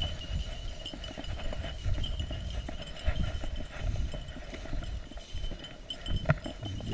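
Footsteps and rustling through tall dry grass: irregular footfalls with stems brushing against legs and the camera.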